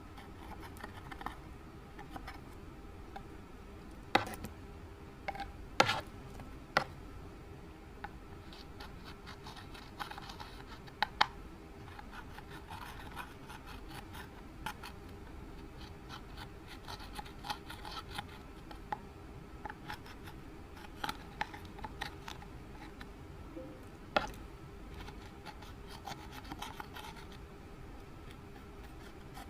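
Scratching and scraping with a handful of sharp clicks and taps, from makeup being scraped out and worked into slime, over a faint steady hum.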